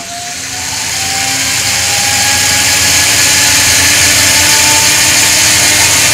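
Two small yellow plastic DC gear motors (TT motors) on a robot car chassis, run by an L298N driver, whirring as their PWM speed is ramped up. The whine climbs slowly in pitch and grows louder over the first few seconds, then holds steady.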